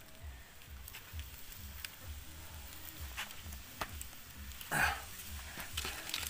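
Small wood cooking fire crackling faintly, with a few sharp pops over a low rumble, and one brief louder sound nearly five seconds in.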